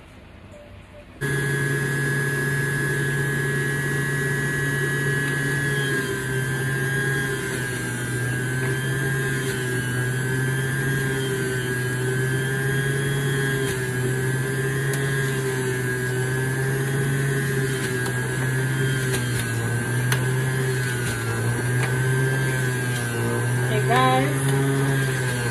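Centrifugal juicer motor switched on about a second in and running steadily at speed setting 3, its hum wavering in pitch as spinach is pressed down the feed chute onto the spinning blade. A few short squeaks near the end.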